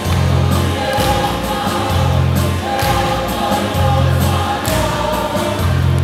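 A group of voices singing a Samoan song together over a steady low bass pulse that comes about once a second.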